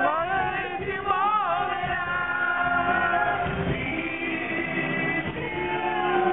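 Music with singing: a voice holding long notes that bend and waver.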